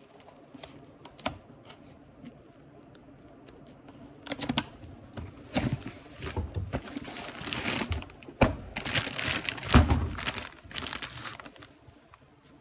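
A cardboard auto-parts box being opened and a new tie rod in a plastic bag lifted out: irregular crinkling and rustling of plastic and cardboard with small knocks, sparse at first and busiest for the middle several seconds.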